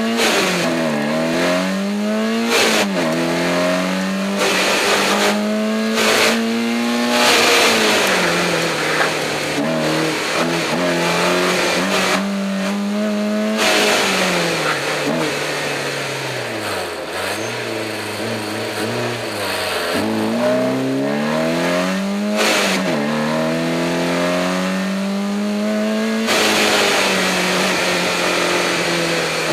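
BMW 318is E30's 1.8-litre four-cylinder engine revving hard through a slalom run. The pitch repeatedly climbs and drops as the throttle is worked and gears change between the cones.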